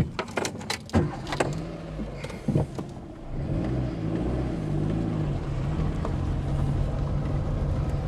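Dacia Logan's 1.2-litre 16-valve petrol engine running as the car moves over loose gravel, heard from inside the cabin. A few sharp knocks and clicks come in the first couple of seconds. About three seconds in, the engine note grows louder and stays steady.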